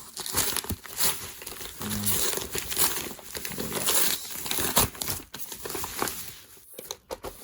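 Packaging being crinkled and torn by hand as a parcel is opened, in irregular rustling bursts with sharp crackles.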